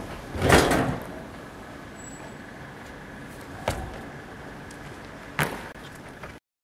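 A loud scuffing thud as a person vaults over plastic wheelie bins and lands, then two sharp knocks, a bit under four and about five and a half seconds in, as his feet strike a brick wall while he climbs it. A steady hum runs underneath.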